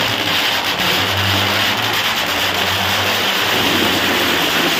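A 10,000-shot firecracker string (ladi) bursting in a rapid, unbroken crackle, the individual bangs merging into a dense, loud, steady din.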